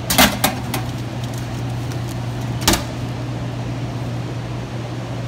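Steady low hum of a snack vending machine, with three sharp plastic clacks in the first second and one more a little after halfway, as the pickup-bin flap door is handled.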